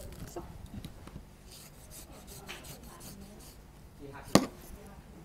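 Knife cutting and scraping along a durian's spiky husk as the segments are pried apart, with one sharp knock a little over four seconds in.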